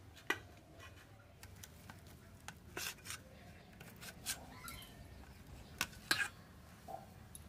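Kitchen knife slicing through a block of homemade paneer on a steel plate, the blade giving a handful of sharp, irregular taps and light scrapes against the metal.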